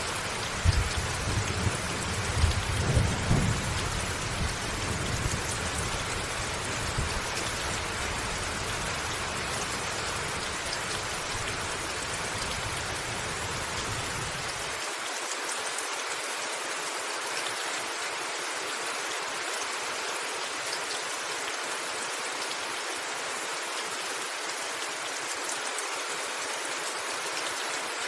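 Steady heavy rain hiss with thunder rumbling low under it, loudest in the first few seconds; about halfway through the rumble cuts off abruptly, leaving only the rain.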